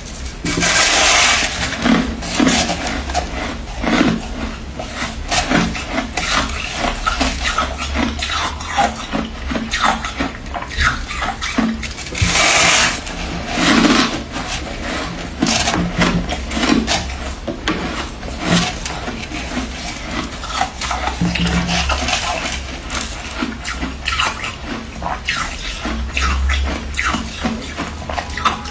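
Freezer frost crunching close to the microphone: a dense, irregular run of crackles, with louder rushing bursts about a second in and again around twelve seconds in.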